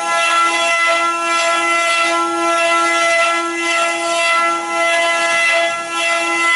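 Multi-head CNC wood carving machine running, its router spindles giving a steady high-pitched whine made of several held tones, with the hiss of the bits cutting wood swelling and dipping about once a second as the rotating blanks are carved.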